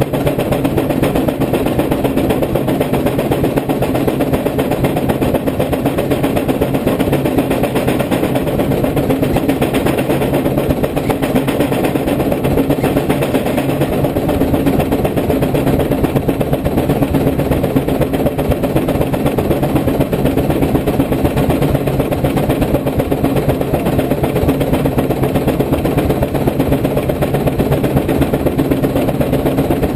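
110 hp Case steam traction engine running belted to a brake (dynamometer) under load, its exhaust chuffing out the stack in a steady, unbroken beat.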